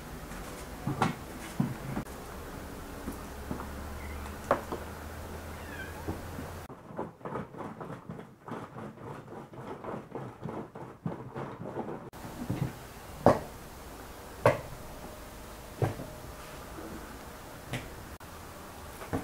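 Hand-cranked onion chopper being turned, a fast even churning of about four strokes a second in the middle of the stretch. Before and after it come scattered sharp knocks and clicks of a knife, bowls and the chopper being handled and set down on the table.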